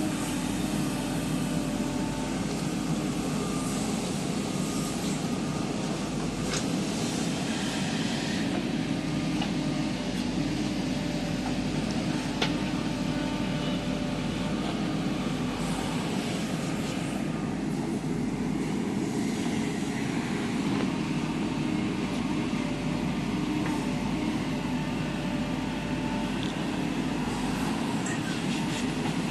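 Diesel engine of a JCB 3DX backhoe loader running steadily under working load, with a single sharp knock about twelve seconds in.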